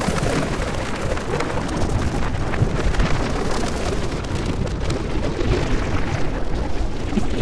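Dense, continuous rumbling noise with a fine grainy texture and a strong low end, holding a steady level, from an experimental electroacoustic sound piece.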